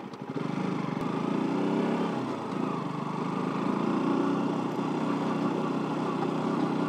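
KTM RC 200's single-cylinder engine running steadily at low revs as the motorcycle is ridden at low speed.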